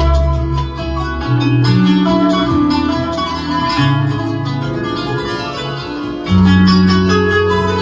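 Music from a Korg Pa5X arranger keyboard: a quick plucked-string melody over long held bass notes, the bass growing louder about six seconds in.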